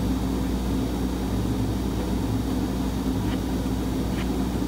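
Steady low machine hum with a faint hiss, and a couple of faint light ticks in the second half.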